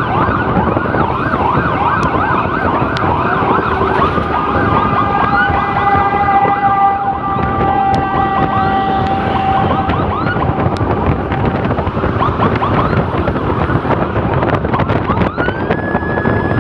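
Emergency sirens on an ambulance escort, yelping in fast repeated rising-and-falling sweeps over steady road noise. For several seconds in the middle, a set of steady held tones sounds instead of the sweeps. The sweeping comes back, and another steady tone starts near the end.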